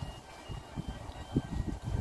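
Wind buffeting the microphone in irregular low gusts, with faint, high, steady beeping tones that come and go.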